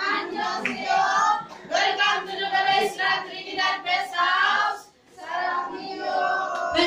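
A group of women singing together, with a short break about five seconds in.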